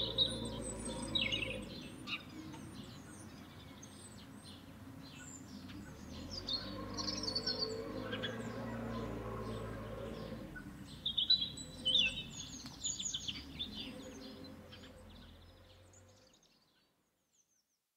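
Farmyard ambience: many small birds chirping and twittering over a low steady hum, fading out to silence about sixteen seconds in.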